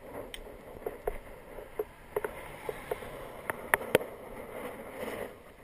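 Riding a road bike over rough tarmac: a steady rushing noise with irregular sharp knocks and rattles, a few each second, the loudest about four seconds in.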